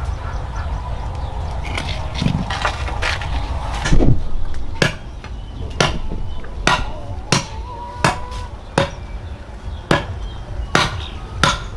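Repeated sharp knocks of a tool striking wood, hammering or chopping, about one a second, starting about five seconds in. Before that, a low steady rumble and one heavier thump.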